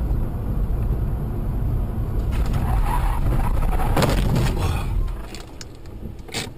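Car on the road with a loud low rumble, then a crash about two to five seconds in: noisy scraping and impacts as the car goes off the road. The sound drops away afterwards, with a single sharp knock near the end.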